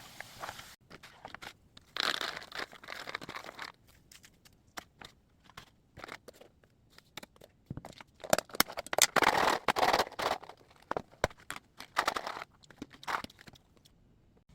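Dry crinkling and crunching in several irregular bursts with pauses between, as the crispy fried chickpea snack is handled.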